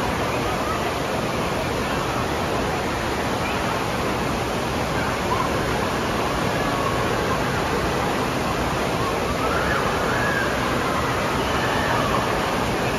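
Water gushing out of a tube water slide and churning down the splash-down runout lane: a steady, even rush of water.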